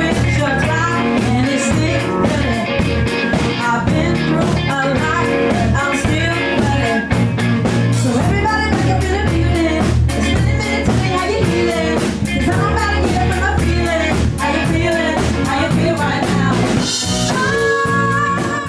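A band playing a rock and roll–style song with singing and guitar over a bass line and a steady drum beat.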